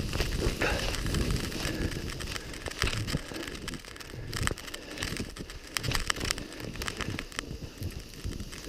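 Skis running through deep fresh powder on a downhill run, a rough rushing noise with wind buffeting the microphone and scattered irregular clicks and knocks.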